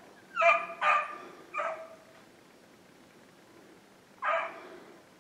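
Beagles barking on a rabbit's track: three short barks in the first two seconds, then one more about four seconds in.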